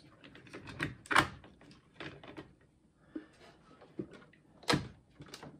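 Clicks and knocks of a 16mm film reel being fitted onto the feed arm of a Bell & Howell FilmoSound projector, with two sharper knocks, one about a second in and one near the end.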